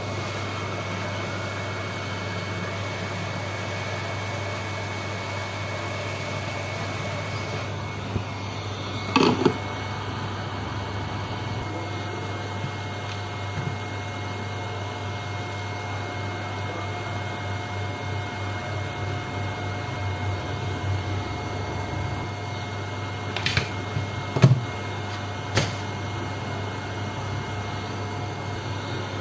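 Steady electrical hum with a thin high whine over it. It is broken by a few sharp clicks or taps, one about a third of the way in and three more close together near the end.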